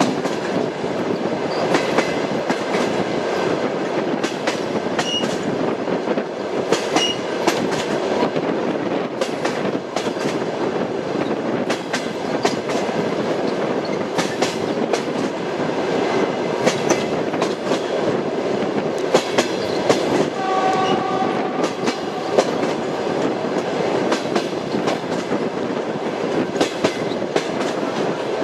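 Passenger train running over jointed track: a steady rumble with the clickety-clack of the wheels striking the rail joints. About twenty seconds in, a train horn sounds a brief chord of several tones for about a second and a half.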